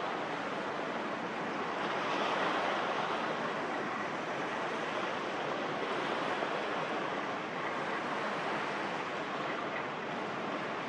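Steady rushing noise of wind and harbour water, even throughout, with no distinct engine note or other events.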